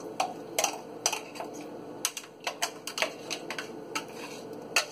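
A spoon clinking and knocking against a mixer-grinder jar as coarse-ground chutney is scooped out into a bowl: a run of irregular sharp taps and clicks.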